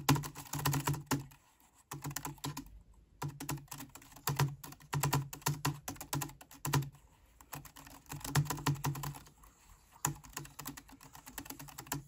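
Typing on an Omoton KB066 Bluetooth keyboard: rapid clicking of its low-profile keys in bursts with short pauses between them, a clicky sound like a mechanical keyboard.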